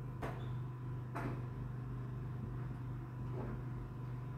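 Steady low background hum with a faint high tone above it. Over the hum come a soft click near the start, another about a second later, and a fainter one about three seconds in.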